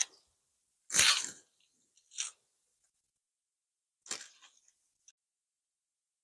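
Flag halyard rope being hauled down the flagpole: three short scraping sounds about a second, two and four seconds in, the first the loudest.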